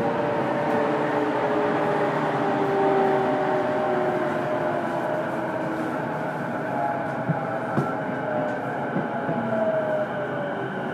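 Running noise from inside a JR East E233-1000 series electric train's motor car: wheels on rail with the traction motor and gear whine, several tones slowly falling in pitch as the train loses speed. Two sharp clicks come in quick succession about seven seconds in.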